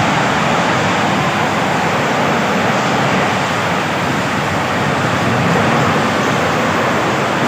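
Loud, steady rushing roar of a whirlwind's storm wind, an unbroken rush of noise with no distinct knocks or crashes.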